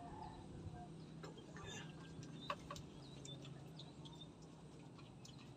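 Quiet ambience: faint, scattered bird calls, short chirps and clucks, over a low steady hum, with a few light clicks.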